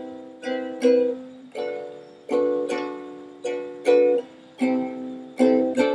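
Ukulele strummed in a down, up, up, down pattern, about a dozen strums, moving between chords as the verse progression is looped.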